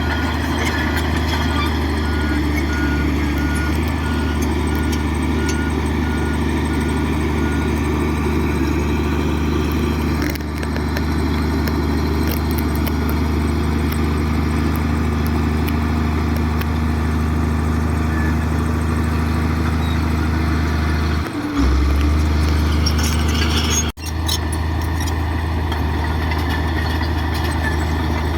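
Heavy diesel engine of an earthmoving machine running steadily, with a reversing alarm beeping at an even pace for the first eight seconds or so. About three-quarters of the way in, the engine note briefly dips and then comes back a little louder.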